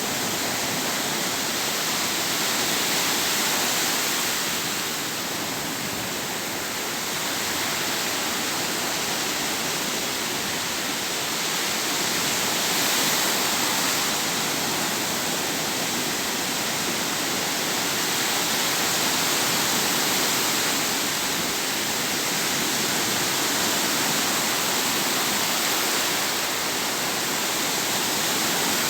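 Sea waves breaking and washing in: a steady rush of surf that swells and eases every several seconds.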